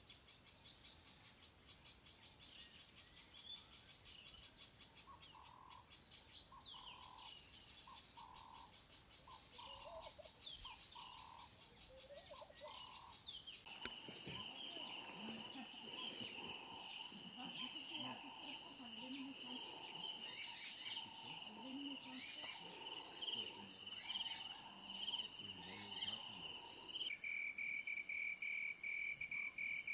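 Birds calling and chirping in the bush, with a low note repeated about once a second. About halfway through, a steady night chorus of insects takes over, with scattered chirps and low calls. Near the end it gives way to a single cricket trilling in a fast, even pulse.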